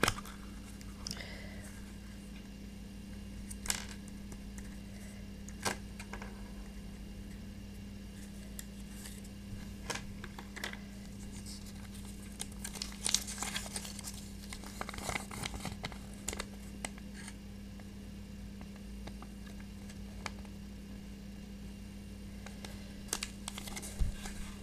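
Handling of a plastic Kinder Surprise toy capsule with a few sharp clicks, then a folded paper toy leaflet being unfolded and crinkled, the rustling busiest in the middle and again near the end.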